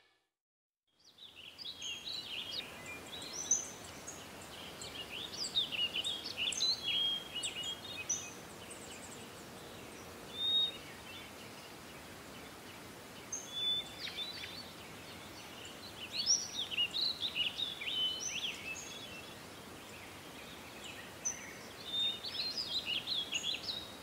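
Birds chirping and twittering in clusters of short, high calls over a steady soft hiss, starting after about a second of silence.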